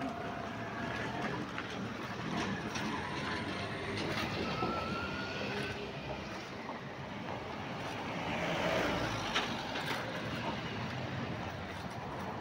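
Light road traffic: motor vehicles driving along a quiet street, one passing close and swelling up about two-thirds of the way through.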